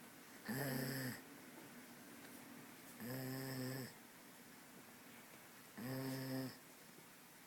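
Labrador-mix dog snoring in its sleep: three separate pitched snores about every two and a half to three seconds, each under a second long, with quiet breathing between them.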